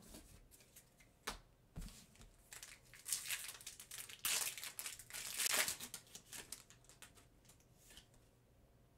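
Foil wrapper of a Pokémon card booster pack being torn open and crinkled: a few sharp ticks first, then a few seconds of dense crinkling around the middle.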